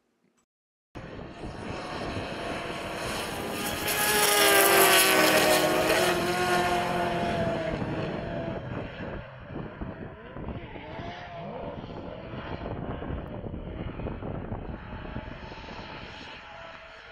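Drift car's 750 whp 2JZ inline-six revving hard through a smoky slide, its pitch rising and falling with the throttle. The sound cuts in suddenly about a second in, is loudest a few seconds later as the car passes, and fades as it moves away.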